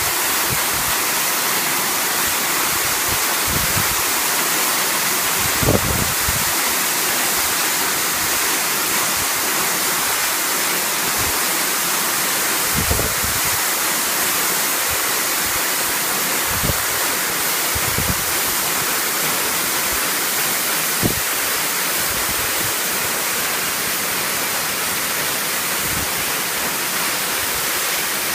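Waterfall heard from close beneath the falls: a steady, loud rush of falling water, with a few brief low thumps scattered through it.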